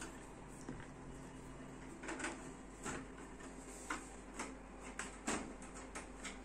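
Screwdriver undoing the screws of a steel ATX computer case: a string of irregular light clicks and metallic knocks.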